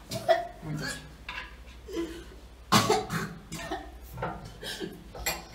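A person coughing in a series of short bursts, the loudest and harshest about three seconds in.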